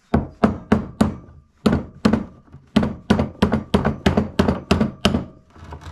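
A hammer striking metal in a quick run of about seventeen blows, roughly three a second, with two short pauses early on and a faint ringing between blows, while a clevis hook is fitted to a lifting chain.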